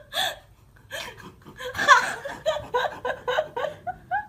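A person laughing in a run of short, breathy bursts, with a sharp gasp-like breath at the start.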